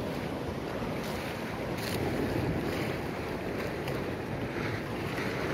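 Sea surf washing against a rocky shore, with wind buffeting the microphone; a steady rushing noise that swells a little about two seconds in.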